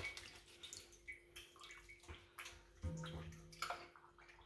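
Faint wet, splashy handling sounds of raw chicken being cut and cleaned, with small scattered clicks, over a steady low hum. A brief murmur of a voice about three seconds in.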